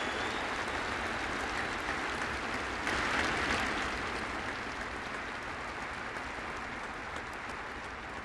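Ballpark crowd applauding, swelling briefly about three seconds in and then slowly dying down.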